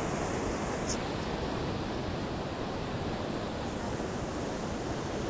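Rough ocean surf breaking on the shore, a steady rush of noise without letup.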